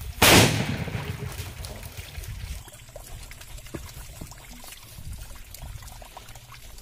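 A heated disposable butane lighter bursting with a sharp bang just after the start, followed by a hiss of escaping gas that fades over a second or two. Scattered faint clicks and crackles follow.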